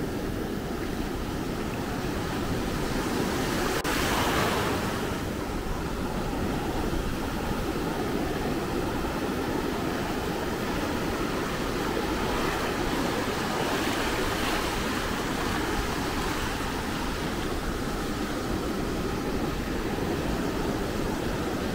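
Atlantic Ocean surf washing onto a beach in a steady roar of breaking waves. The surf swells louder about four seconds in, and again around twelve to fifteen seconds in.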